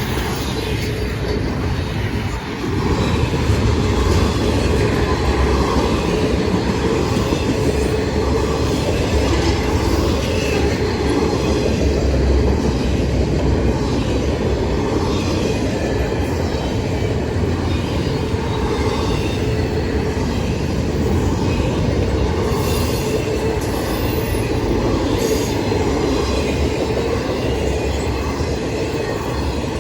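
Norfolk Southern freight train rolling past, a steady rumble of wheels on the rails that grows louder about three seconds in.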